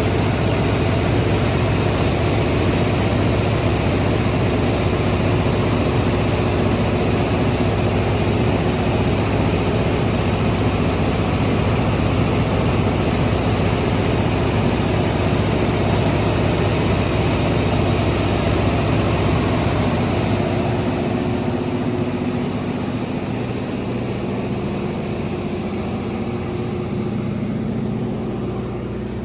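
1600 kW Katolight diesel generator set running with a loud, steady engine noise. The sound grows quieter about two-thirds of the way through.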